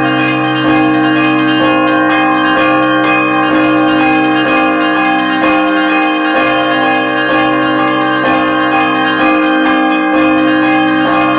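Russian Orthodox church bells ringing the Easter peal: many bells struck in quick succession, their tones overlapping into one continuous ringing over a steady low hum from a large bell.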